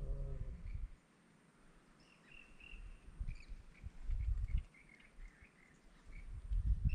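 Birds chirping in short, repeated high notes over quiet outdoor background, with a low rumble in the first second and a few more brief low rumbles later.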